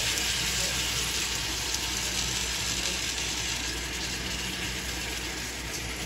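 Salmon fillets and sliced red onions sizzling in a hot frying pan as a sauce is poured over them: a steady hiss that eases off slightly.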